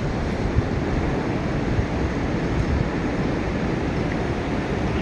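Steady low rumble of downtown city traffic heard from above, with no distinct events.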